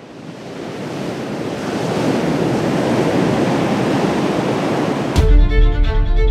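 Heavy surf of breaking ocean waves, fading in and growing louder over the first two seconds. About five seconds in it cuts abruptly to string music with a violin.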